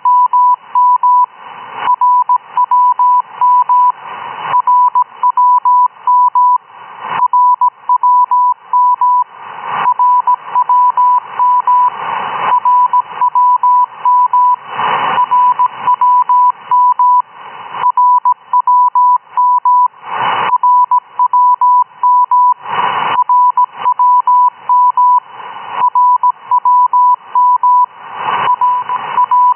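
Shortwave reception of the RWM time-signal station on a receiver tuned near 9997 kHz: a 1 kHz beat tone keyed in rapid short pulses, several a second. The reception carries noise and crackling bursts that come about every two and a half seconds.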